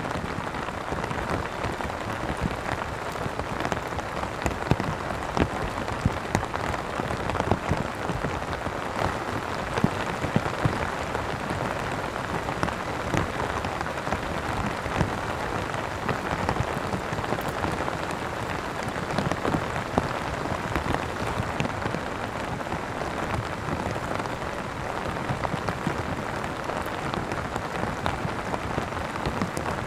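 Steady heavy rain, with many separate drops ticking sharply close to the microphone.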